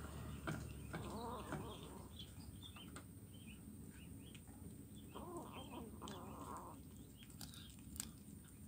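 Kitten chewing fish bones, with a few faint sharp crunches, while birds chirp in the background.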